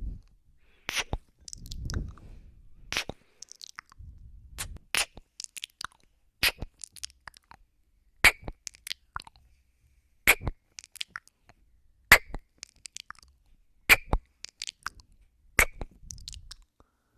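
Close-miked ASMR mouth sounds: sharp wet kisses and lip smacks about every two seconds, with low breaths blowing on the microphone between some of them.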